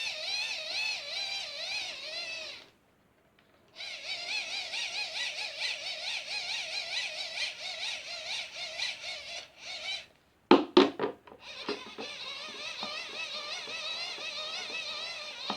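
Hand-crank dynamo of a rechargeable LED lantern whining as the crank is turned to charge its battery, the pitch wobbling up and down with each turn. The whine breaks off for about a second, then resumes; a few sharp clicks come about ten seconds in before it carries on.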